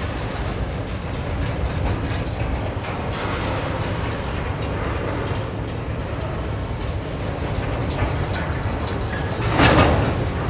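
Freight train's boxcars rolling past on the track: a steady low rumble of wagons and wheels with faint clicks over the rail joints, and a brief louder rush near the end.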